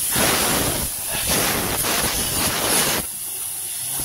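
Hissing of air forced through a car's AC refrigerant pipes as the lines are blown out during a flush, in three strong spurts over the first three seconds, then a lower hiss.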